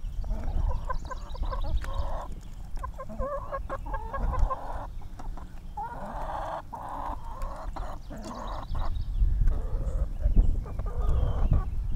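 Backyard hens clucking and squawking over one another, an agitated flock squabbling and pecking at each other over treats.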